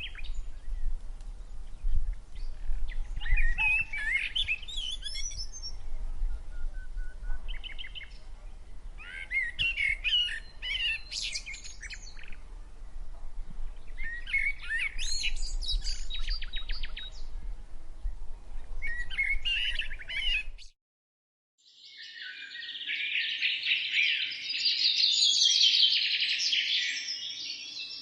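Wild songbirds singing in short separate phrases every couple of seconds, with a low rumble underneath. About 21 seconds in, the sound cuts out for about a second, and a denser chorus of many birds chirping fades in.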